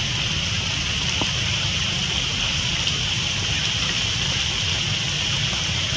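Steady forest ambience: a continuous high insect chorus of cicada-like buzzing, with a low rumble underneath.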